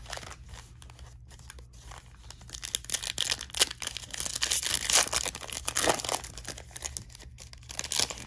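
Foil wrapper of a trading-card pack being torn open and crinkled by hand, the crackling busiest about halfway through.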